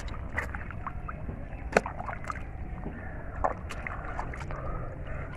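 Water splashing and sloshing in shallow river water, with scattered short splashes and knocks, the sharpest about two seconds in, over a low steady rumble.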